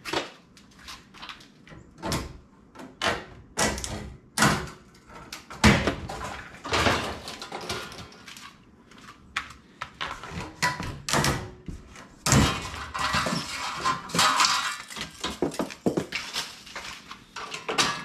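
Green plastic packing strapping being worked loose and pulled off a steel-framed cardboard shipping crate: irregular knocks and clicks against the crate, with longer stretches of scraping and rustling about six and twelve seconds in.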